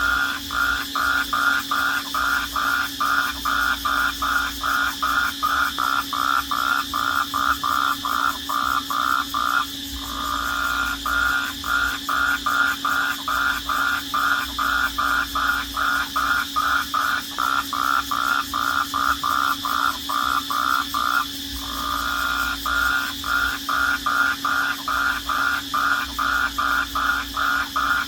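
Night chorus of calling crickets: a pulsed call repeating about three times a second in long runs, broken twice by short pauses, over a steady high trill.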